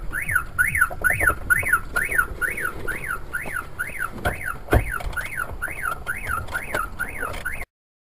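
Car alarm siren sounding in rapid up-and-down sweeps, about two a second, with a single sharp thump about five seconds in; the alarm cuts off suddenly near the end. It is going off during an attempted theft of the car.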